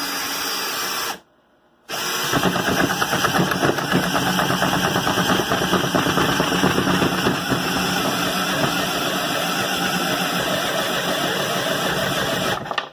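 Teccpo 12-volt cordless drill boring into wood with a 1-inch spade bit, its motor running under load. It runs for about a second, stops briefly, then runs steadily for about eleven seconds before stopping.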